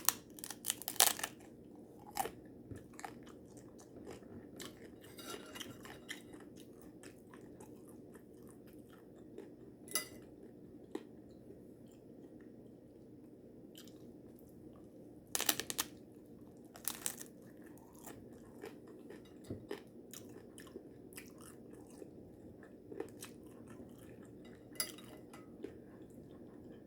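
A person biting into and chewing a taco, with sharp crackles at the bites, loudest near the start and again about halfway through, between stretches of quieter chewing.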